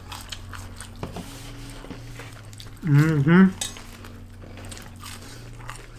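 Faint clicks and clinks of someone eating and handling takeout food and dipping-sauce cups, over a steady low hum. About halfway through comes one short, wavering hummed 'mmm' from an eater.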